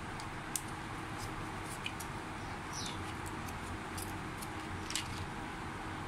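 Paper-backed plastic blister card of CR2016 coin cells being peeled open and a cell pushed out: a few small sharp clicks and crinkles over a steady background hiss.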